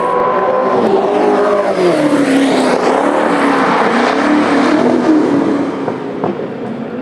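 Race car engines at high revs passing trackside. The pitch falls about two seconds in, then rises and falls with throttle and gear changes, and the sound eases off a little near the end.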